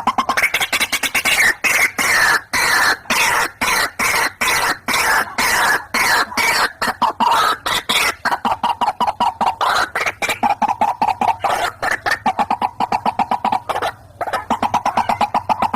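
White-breasted waterhen calling: a fast run of harsh repeated notes. The notes slide down in pitch and settle into a steadier, lower run, with a brief break near the end.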